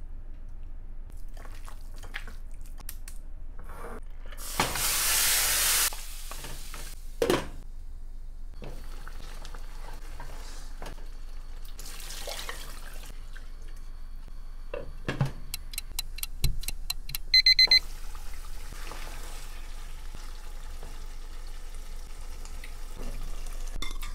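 Meat cooking in a pot. A loud sizzle starts and stops sharply about five seconds in, water is poured into the pot near the middle, and a spoon clicks against the cookware. There is also a quick run of about four high electronic beeps.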